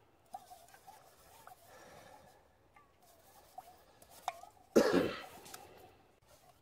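A stainless steel GSI Glacier camping cup being scrubbed out with a green scouring pad, a faint rubbing with small clicks. One loud cough comes about five seconds in.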